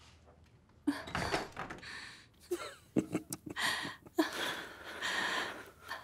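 Soft sounds of two people standing close together: breathing and clothes rustling, with a light knock about a second in and a few small clicks after it.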